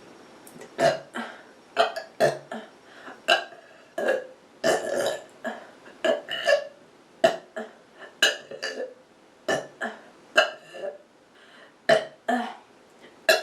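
A person burping over and over, roughly one to two burps a second. Most are short, with a few longer, drawn-out ones.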